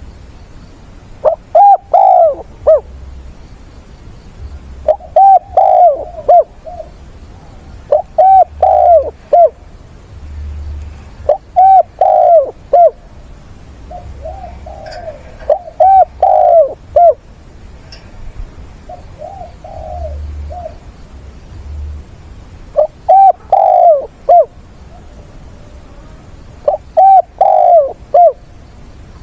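Spotted dove cooing: a phrase of three or four short, arched coo notes repeated about every three to four seconds, eight times, with a couple of the phrases fainter than the rest.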